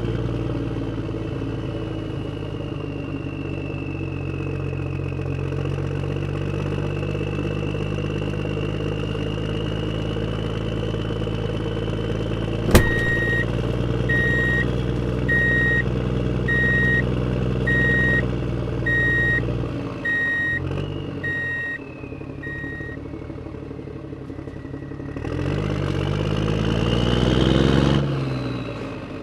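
Truck engine running steadily. About halfway through there is a sharp click, then a reversing beeper sounds about nine times, roughly once a second. Near the end the engine revs up, its pitch rising.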